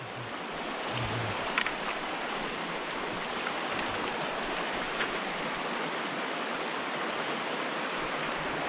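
Steady rush of water flowing in a small mountain stream, with a few faint ticks.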